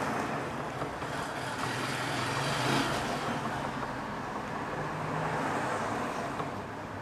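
Worn front stabilizer link from a 2017 Chevrolet Prisma 1.0 worked by hand, giving a few faint clicks from its loose ball joint. This play is the cause of a knocking noise from the front suspension. A steady rush of background noise swells and fades under it.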